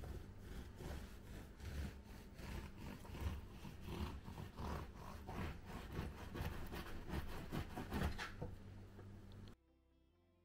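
Close-up chewing of a flaky croissant: crisp crunching and rasping in quick, irregular strokes, which cuts off abruptly near the end.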